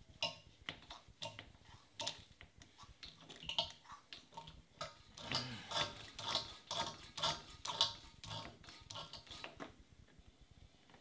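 Hand oil-suction pump being worked in a rotary cutter's gearbox to draw out old gear oil: a string of clicking, slurping strokes that come faster in the second half and stop about a second before the end.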